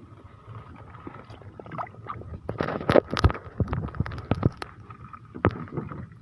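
A scuffle of sharp knocks and splashes, loudest about halfway through with one more hard knock near the end, over a steady background hum.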